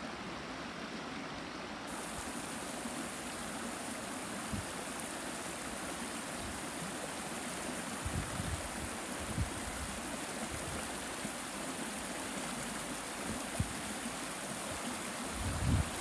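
Steady rushing of a shallow stream flowing over stones. A few soft low thuds come through now and then, heavier near the end.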